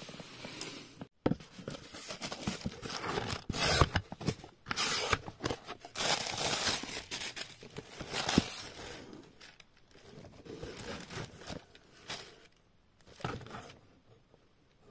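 Cardboard and plastic packaging being torn open and crinkled by hand. The tearing and rustling come in irregular strokes, busiest in the first half and thinning out toward the end.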